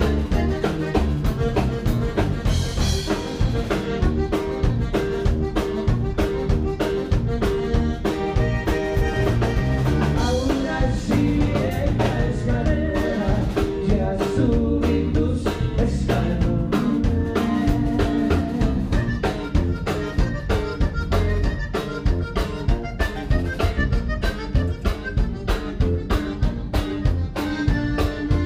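Live conjunto music: a button accordion playing the melody over guitar, electric bass and a steady drum beat.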